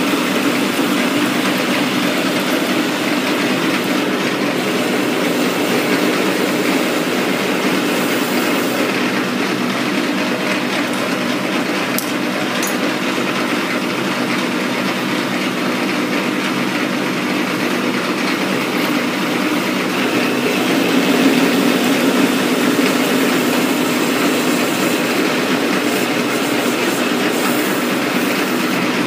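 Metal lathe running steadily while turning an R8 tooling shank under flood coolant: a constant low hum under an even hiss.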